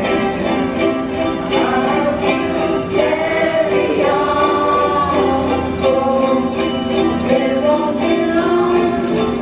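A group of children strumming ukuleles together while a girl sings lead into a microphone and other children sing along.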